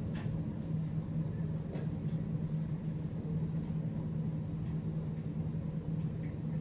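A steady low hum with a low rumble beneath it, and a few faint ticks.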